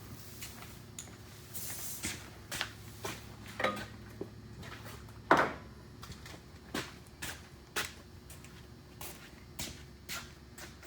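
Scattered knocks, clicks and clatter of things being handled in a garage, the loudest knock about five seconds in, over a low steady hum that stops at that same moment.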